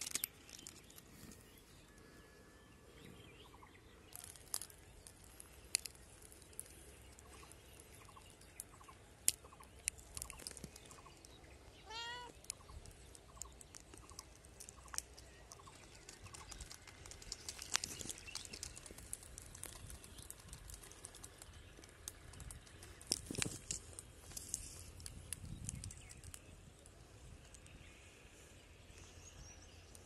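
Scattered light scratches and clicks of a cat's claws on tree bark as it climbs, with a short bird call of several quick repeated notes about twelve seconds in.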